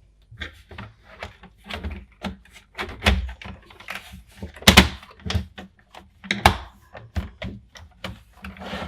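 Hand work on small hard parts: a run of irregular clicks and knocks as pieces are handled and fitted together, the loudest knock nearly five seconds in and another sharp one about a second and a half later.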